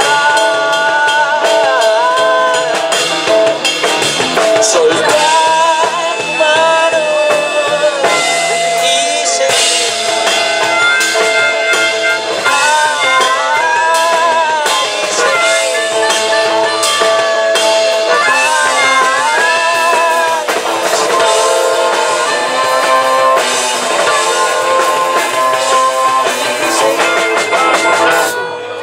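A small rock band playing live: singing over acoustic guitar and a drum kit. The music stops near the end.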